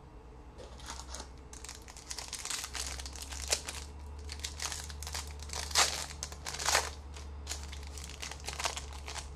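Wrapper of a trading-card pack crinkling and tearing as it is handled and opened: a run of sharp crackles starting about half a second in, loudest a little past the middle.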